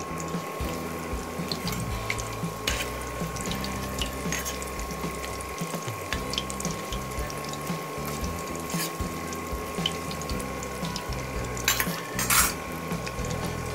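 Cauliflower kofta balls deep-frying in hot oil over low heat: a steady sizzle with fine crackling. A steady thin high tone runs underneath, and a few louder clicks come near the end.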